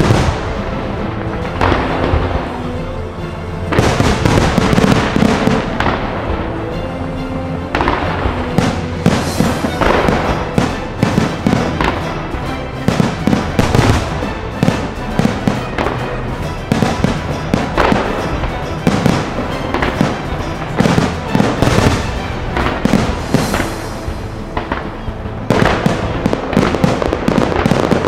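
A fireworks display: rapid, overlapping bangs and crackling bursts of aerial shells, with show music playing underneath.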